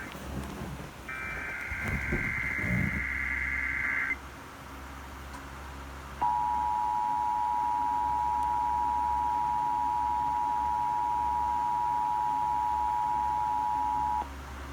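Emergency Alert System broadcast tones: about a second in, a three-second burst of screechy SAME header data tones, then after a short gap the EAS attention signal, two steady tones at 853 and 960 Hz sounding together for about eight seconds before cutting off abruptly. A low steady hum runs underneath.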